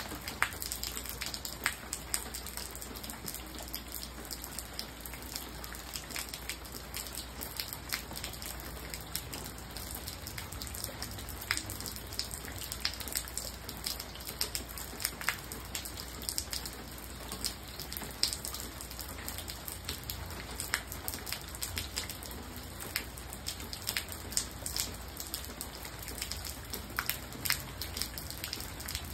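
Rain falling steadily, with large raindrops striking a wet surface as many irregular, sharp taps over a continuous hiss.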